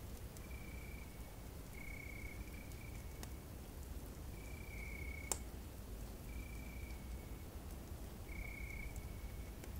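Night camping ambience: a short steady-pitched chirping call repeating about every two seconds over a low steady rumble, with a few faint crackles from a campfire and one sharp snap about five seconds in.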